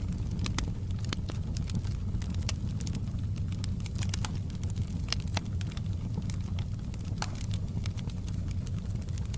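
Wood fire in a fireplace crackling, with sharp, irregular pops and snaps several times a second over a steady low rumble.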